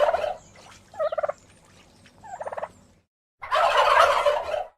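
Turkey gobbling. The tail of a loud rattling gobble comes at the start, followed by two shorter, quieter gobbles about one and two and a half seconds in. Another loud gobble begins about three and a half seconds in.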